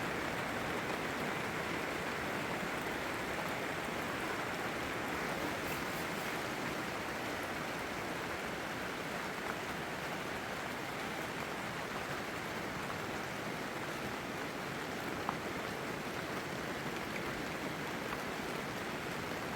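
Steady spring rain falling, an even hiss of rain with no pauses.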